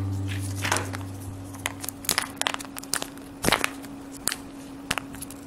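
Foil wrapper crinkling and tearing as it is peeled off a plastic surprise-egg capsule, with scattered sharp clicks of the plastic eggs being handled. The last of the background music dies away at the start.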